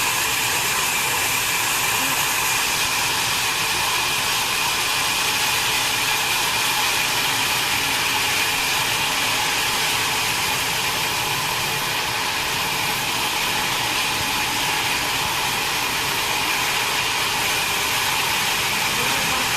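Wood-cutting machine running continuously, an even mechanical whir with a steady high whine and no breaks.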